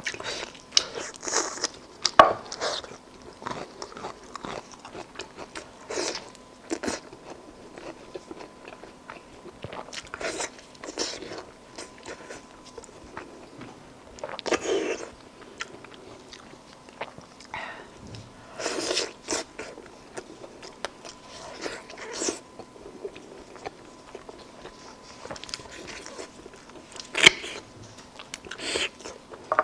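Close-miked eating: bites into braised meat on the bone and chewing, in irregular bursts, with a sharp click a little over two seconds in and another near the end.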